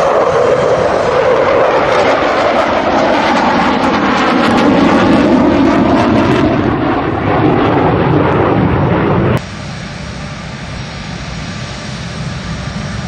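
F-15C Eagle fighter jets passing low overhead, their twin turbofan engines loud, the sound shifting up and down in pitch as they fly by. About nine seconds in it cuts abruptly to a quieter, steady jet engine sound from an F-15C on the runway.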